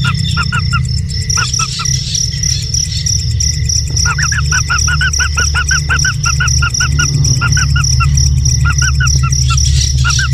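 A bird calling in quick runs of short, repeated chirps, over a steady high insect trill. A loud low rumble runs underneath.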